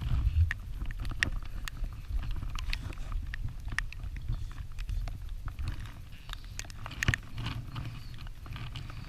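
Low rumble with scattered sharp clicks and taps at irregular intervals, one louder tap about seven seconds in.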